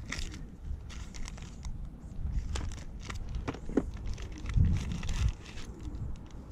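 Plastic rig packets crinkling and rustling in the hands, with small clicks and taps from a plastic tackle box. A low rumble swells briefly about halfway through.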